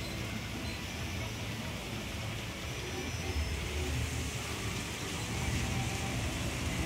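A GCI wooden roller coaster train rumbling along its wooden track: a steady low rumble over a haze of noise, growing a little louder about five seconds in.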